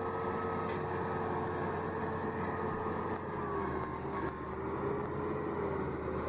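Heavy vehicle engine running steadily, with a whine whose pitch drifts slowly down and back up.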